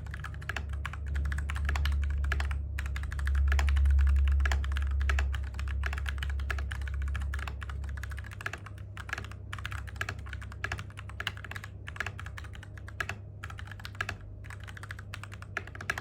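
Continuous fast typing on a TM680 mechanical keyboard fitted with stock, unlubed Gateron Milky Black linear switches: a dense, irregular clatter of keystrokes, with the scratchy friction of the switches' plastic rails audible, stopping right at the end. A low hum runs underneath, louder in the first half.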